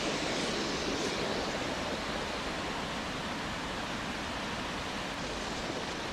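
Steady rush of a fast-flowing river spilling over a small fall, an even hiss-like noise that eases slightly after the first couple of seconds.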